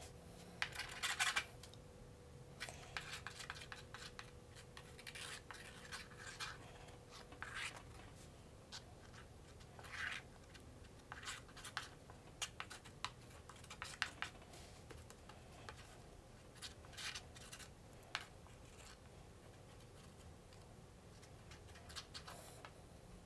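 Faint scraping of a wooden craft stick spreading contact cement over a piece of cardboard, in short, irregular strokes.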